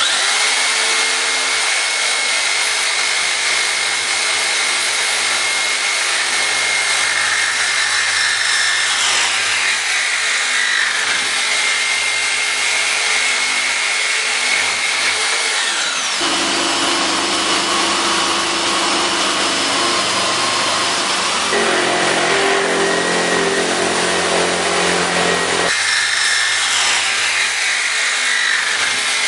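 Metabo STEB 65 Quick 450 W jigsaw with a metal-cutting blade, cutting through a copper heating pipe without pendulum action. It runs steadily throughout, and its tone shifts somewhat a little over halfway through.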